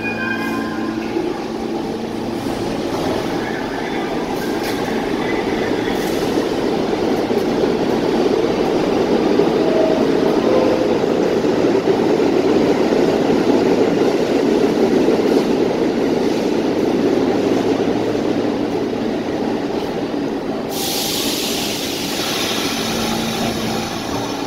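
R46 subway train running through the station, its rumble building to a peak in the middle and then easing. Near the end a sudden high hiss of air cuts in for about two seconds.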